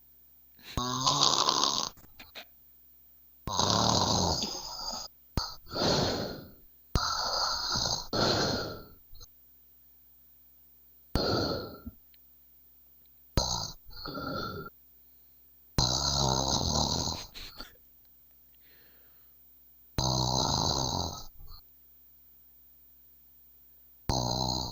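Someone asleep and snoring loudly. The snores come in rasping bursts of about a second each, at irregular intervals of two to four seconds.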